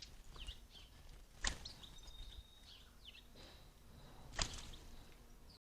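Garden birds chirping faintly, with short calls and one thin whistled note held for about a second and a half. Two sharp clicks about three seconds apart are the loudest sounds.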